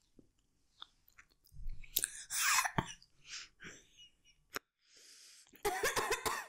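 Close-miked chewing and wet mouth sounds: scattered smacks and clicks, a soft breath out about five seconds in, and a louder cluster of wet smacking in the last second as she grimaces at the taste.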